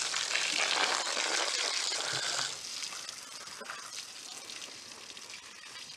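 Water from a hose spraying onto a heap of freshly dug, muddy carrots, making a steady hiss that drops away to a much quieter hiss about two and a half seconds in.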